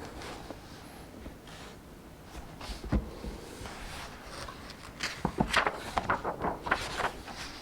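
Paper handling at a desk as book pages are turned: soft paper rustling, a sharp knock about three seconds in, then a quick run of crisp clicks and rustles over the last two and a half seconds.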